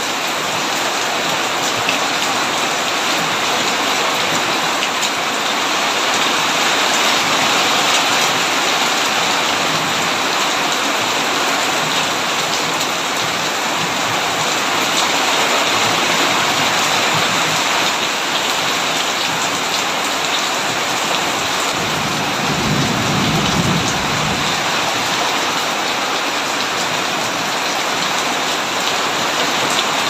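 Heavy rain drumming steadily on a tin roof, with a single low roll of thunder about three-quarters of the way through, lasting a couple of seconds.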